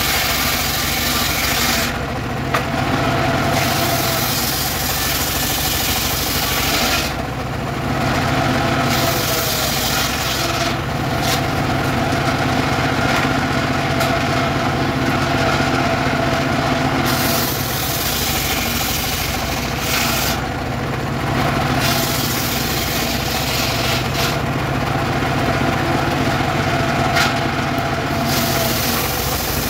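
Mobile circular saw bench ripping boards of weru wood. The power unit runs steadily throughout, while the blade's high cutting noise comes in with each pass through the board and drops back several times between passes.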